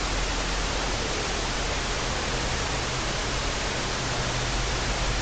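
Steady, even hiss with a faint low hum underneath, unchanging throughout; no distinct sound stands out.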